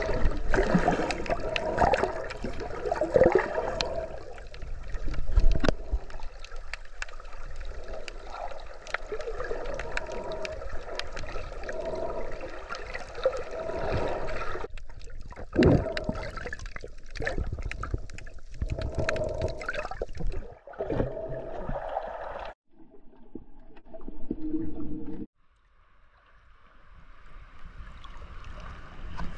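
Muffled sloshing and gurgling of water around a camera moved underwater, with occasional knocks. Near the end it drops nearly quiet for a couple of seconds, then a rising wash of water as the camera comes to the surface.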